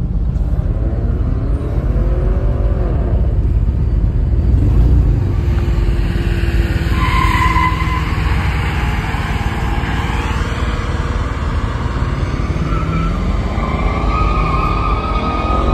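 Pickup truck doing a burnout: the engine revs hard with a heavy low rumble, and the spinning tires squeal, sharpest about seven seconds in and again near the end.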